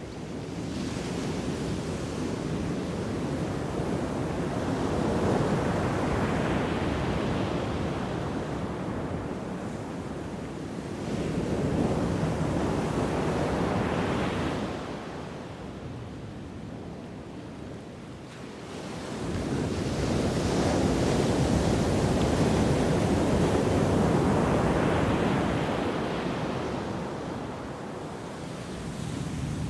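Ocean waves washing in and falling back, in three long surges that each swell and fade over several seconds.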